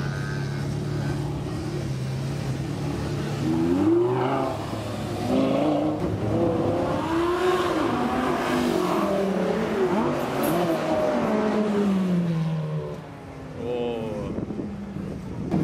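Supercar engine idling, then revved hard several times from about four seconds in, its pitch climbing and falling again and again before it drops back to a steady idle near the end.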